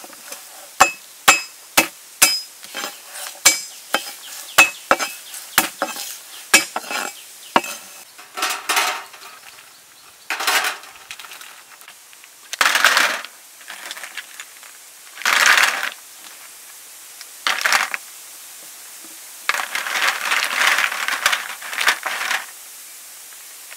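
Hard snail shells clinking against a metal tray, a run of sharp clicks with a short ringing about two a second. This is followed by several swishes of water as a hand stirs the snails around in the tray.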